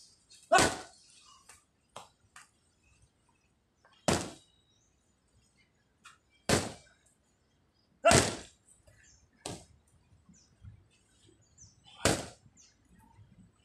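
Gloved boxing punches landing with sharp slaps, about five hard hits a few seconds apart and a few lighter taps between them.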